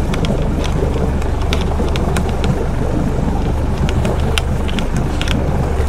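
Motorboat engine running steadily under wind buffeting the microphone, with scattered light ticks as spinning reels are wound in.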